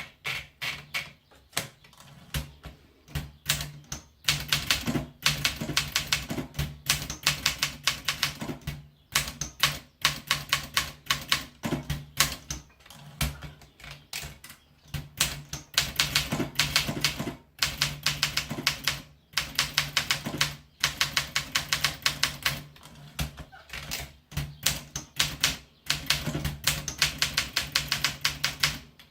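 Olympia Colortip S typewriter being typed on: fast runs of key strikes in bursts, with short pauses between them, over a steady low hum.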